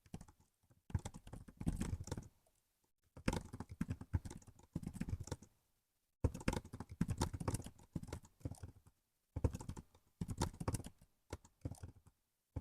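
Typing on a laptop keyboard: runs of rapid key clicks in bursts of one to two seconds with short pauses between them.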